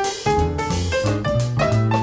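Live jazz combo playing an instrumental passage, with piano, bass and drum kit.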